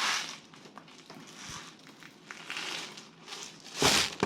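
Crinkling, rattling handling noise as 6mm airsoft BBs are poured into the top of a speed loader, with a louder burst near the end.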